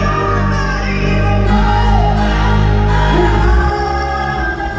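Live pop concert music: a woman sings lead with a microphone over a full band backing with sustained bass notes, recorded from the arena audience.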